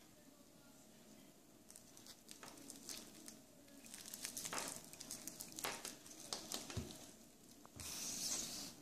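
Clear plastic protective film on a new wristwatch crinkling and crackling as the watch is handled, with scattered small clicks and taps. A soft knock about seven seconds in as the watch is set down on a wooden table, then a louder rustle of the plastic near the end.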